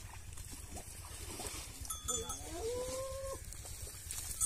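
A farm animal's call: one long call that rises in pitch and is then held for about a second before it cuts off, over a steady low rumble.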